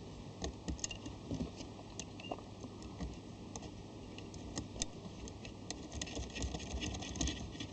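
Light clicks and taps of small metal parts, washers and nuts being handled and fitted onto wiring terminals, getting busier near the end.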